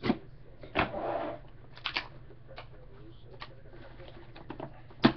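Folding knife cutting the seal on a National Treasures card box, then the box handled and its lid opened: a run of sharp clicks and knocks, with a short scratchy cut about a second in and the loudest click near the end.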